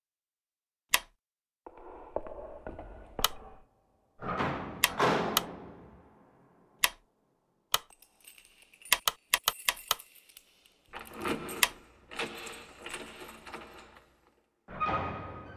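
A run of sound effects: single sharp clicks and knocks, a quick cluster of clicks around the middle, and between them noisy rattling stretches that swell and die away.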